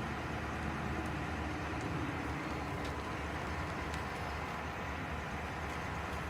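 Steady, low engine rumble of a vehicle or heavy machine running, over an even outdoor noise.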